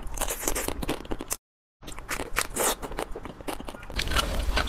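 Crunchy biting and chewing sounds of ice cream bars being eaten, in the close-up style of a mukbang eating video. The crackly bites break off for a moment of dead silence about a second and a half in, then resume and grow louder near the end.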